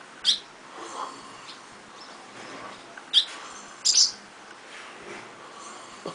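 Barn swallows giving short, high chirps: one just after the start, one about three seconds in, then a quick pair about a second later.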